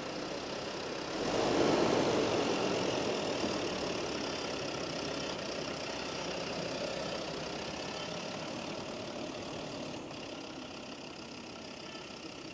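Land Rover Defender Td5's 2.5-litre five-cylinder turbodiesel idling steadily after its cylinder head replacement, swelling a little about a second in.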